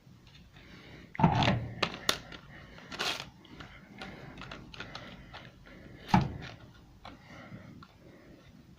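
Clicks and knocks from a tumble dryer being handled, with a heavy thump about a second in and another a few seconds later.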